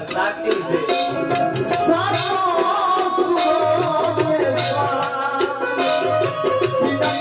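Live Bhojpuri dugola folk music: a male voice singing a melody into a microphone over steady, rhythmic percussion and sustained instrumental tones.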